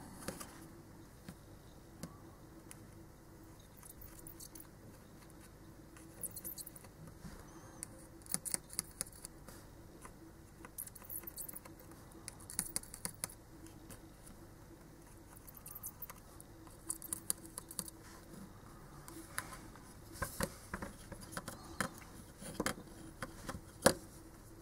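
Light, irregular clicks and scrapes of metal and plastic: a soldering iron tip and fingers working at the SATA connector of a Western Digital hard drive's circuit board to desolder and pull it loose. The clicks come in small clusters, most of them from about six seconds in.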